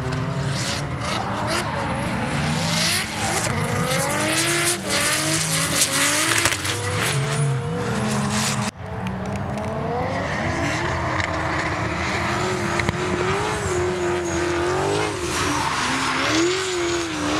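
Drift cars sliding sideways under power: engines revving up and down hard, with tyre squeal from the smoking rear tyres. First two cars drift in tandem; after a sudden break about 9 s in, a lone BMW E36 coupé revs through its drift.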